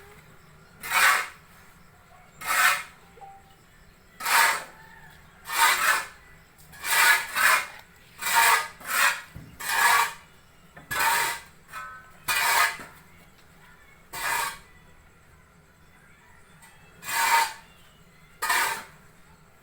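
Sawdust mushroom substrate being turned and mixed by hand: a series of short, rough scraping strokes, about one a second and irregular, some doubled.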